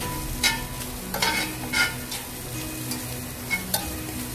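Carne asada sizzling in a hot cast iron pan while it is stirred with kitchen tongs, the tongs clicking and scraping against the pan several times.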